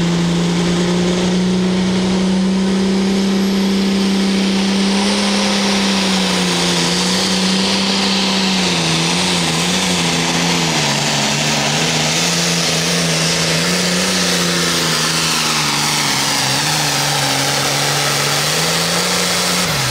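John Deere pulling tractor's diesel engine running flat out under full load as it drags the weight-transfer sled. The engine note holds steady at first, then sags from about eight seconds in and wavers up and down as the sled's load builds.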